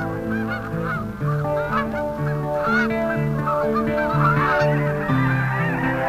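A flock of geese honking in many overlapping calls, over a background music score of long held notes that change pitch every second or so, from an old 16mm film's optical soundtrack.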